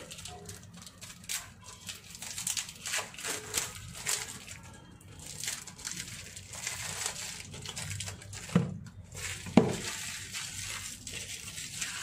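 Packaging of a new playing-card deck being worked open by hand: cellophane wrapper and paper box crinkling and rustling, with two dull knocks about a second apart past the middle.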